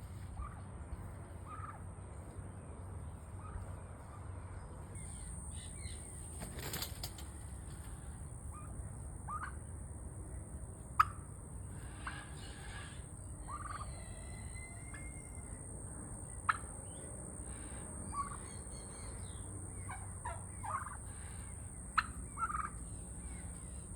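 A family of turkeys giving scattered short, soft calls. Three sharp clicks, about five seconds apart, are the loudest sounds, and a steady high-pitched tone runs underneath.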